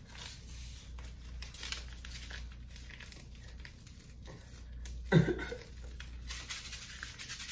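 Small Pop Rocks candy packets being torn open and crinkled by hand, a run of light rustles and tearing. There is a brief voice sound about five seconds in.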